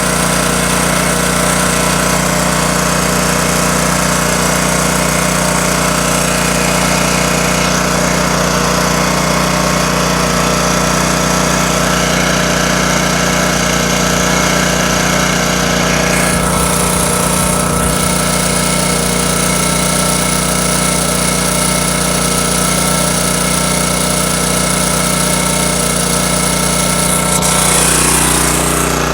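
Honda EX1000 portable generator running steadily under load from a window air conditioner. A brighter hiss comes in about halfway through and shifts again near the end.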